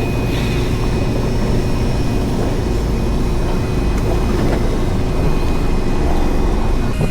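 Fishing boat's engine running at a steady low hum, with a thin steady whine held above it.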